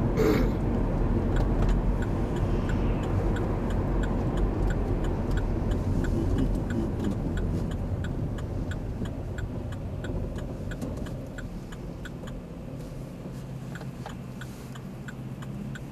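Engine and road noise inside a moving car's cabin: a steady low rumble that eases off in the second half. A faint, regular ticking runs through it.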